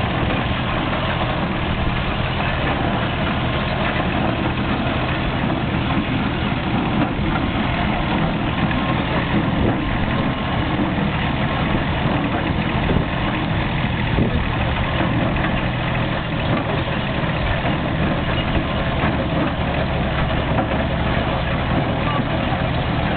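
Kubota B7001 compact diesel tractor running steadily under load as it drives a Heywang Olympic 750 straw baler, the baler's mechanism working along with it.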